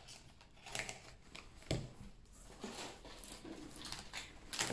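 Light rustling and a few small clicks and taps of cosmetic products and their packaging being handled, the sharpest click a little under two seconds in.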